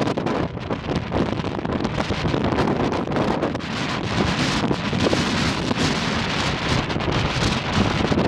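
Wind buffeting the microphone: a loud, uneven rumbling hiss that rises and falls in gusts.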